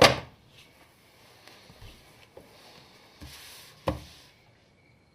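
Two sharp thuds on a hard surface, the first and loudest right at the start and the second about four seconds in, with faint rustling between them.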